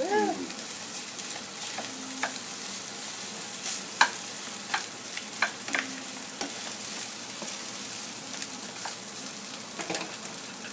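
Fried rice with chicken and egg sizzling in a nonstick frying pan as a plastic spatula stirs and scrapes it, with irregular sharp taps of the spatula against the pan.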